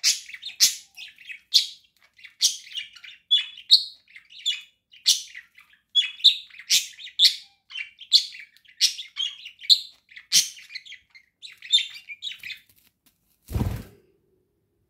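Pet budgerigars chirping and chattering in a quick run of short, high calls, about two a second, which stop about twelve and a half seconds in. Near the end comes one brief, loud thump.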